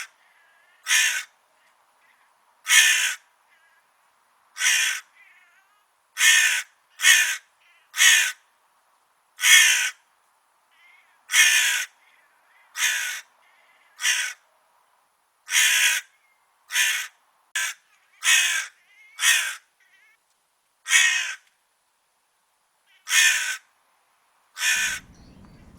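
A crow cawing repeatedly: about eighteen harsh single caws at uneven intervals of one to two seconds.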